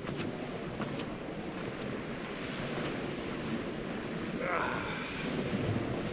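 Lake Michigan waves washing on a pebbly beach, with wind buffeting the microphone: a steady rushing noise. A few light clicks come in the first two seconds.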